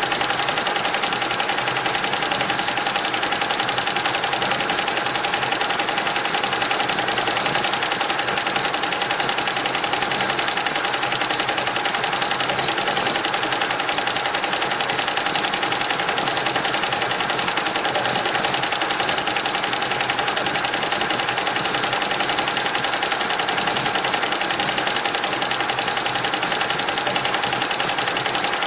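Richpeace roll-to-roll embroidery machine stitching at speed: a rapid, even needle clatter with a steady whine underneath.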